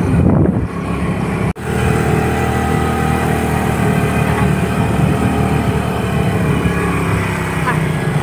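Motorcycle engine running steadily on the move, heard from the pillion seat, with wind rushing over the microphone. The sound breaks off for an instant about a second and a half in.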